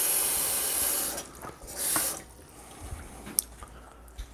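Water running from a kitchen tap, shut off about a second in, then turned on again briefly; a few faint clicks follow.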